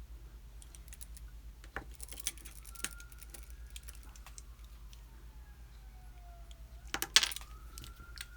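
Small metallic clicks and taps from an opened Brady ABUS lockout padlock being worked on with lock picks, with a louder cluster of clicks about seven seconds in.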